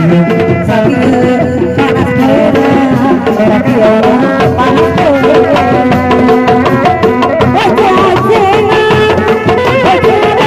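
Sundanese dog-dog street ensemble playing: a large barrel drum struck with a padded mallet keeps a steady beat under a wavering, ornamented melody line.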